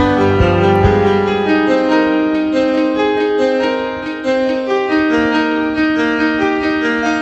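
Background music: a keyboard melody of held notes, with the low bass part dropping out about a second and a half in.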